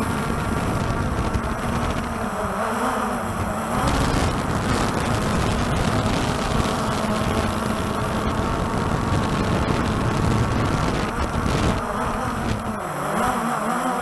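Walkera TALI H500 hexacopter's electric rotors buzzing and pulsing, their pitch wavering up and down as the drone fights strong wind to hold its position. Heavy wind buffeting on the onboard microphone drowns the rotor tone through the middle of the stretch.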